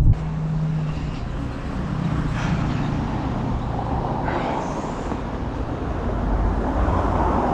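Road vehicles running on a snow-covered street: a steady low engine rumble with tyre noise, swelling louder near the end as a vehicle comes closer.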